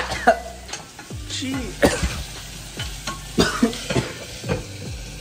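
Food sizzling in a frying pan, with repeated sharp clicks and knocks of a utensil stirring and tapping against the pan.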